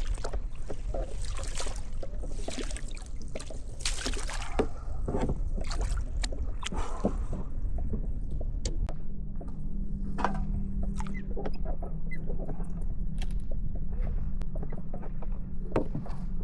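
Scattered knocks, clicks and clatter of gear being handled aboard a plastic fishing kayak, over a constant low wind rumble on the microphone. A steady low hum sets in about halfway through and holds.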